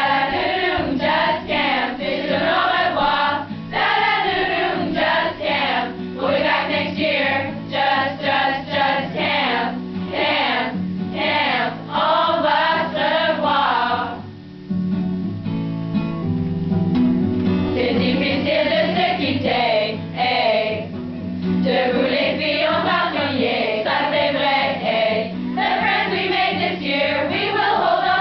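A large group of mostly women's voices singing together in unison from song sheets, over a low instrumental accompaniment. About halfway through the voices stop for a few seconds between phrases while the accompaniment carries on, then the singing resumes.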